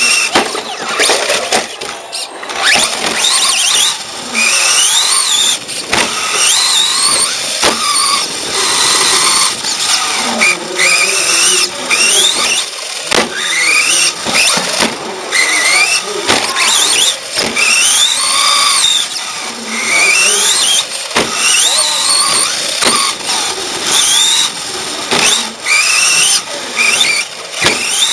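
Onboard sound of a radio-controlled racing truck: a high whine that climbs in pitch again and again, about every two seconds, as it accelerates out of each turn. Underneath runs a steady rush of tyres, with frequent sharp rattles and knocks from the chassis.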